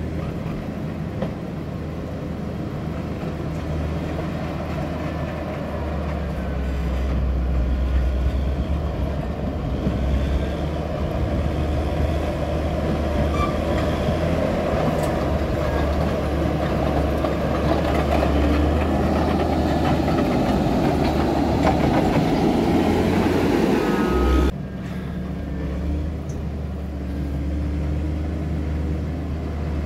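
CAT 140M motor grader's diesel engine running as the grader drives along a dirt road. The sound grows louder as the grader comes close, then drops sharply about three quarters of the way through.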